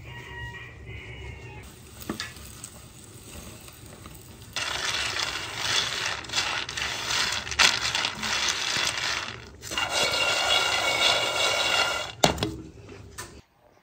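Metal kitchenware clinking and scraping: utensils against pots and dishes. It is sparse at first, then busier and louder from about four and a half seconds in, ending with a sharp knock near the end.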